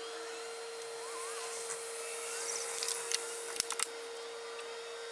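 Siding being nailed up: a few sharp taps, with a quick run of three a little past the middle, over a steady hum.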